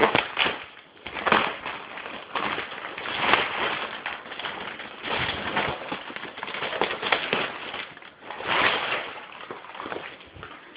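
Plastic packaging crinkling and rustling in irregular bursts as a package is pulled open by hand.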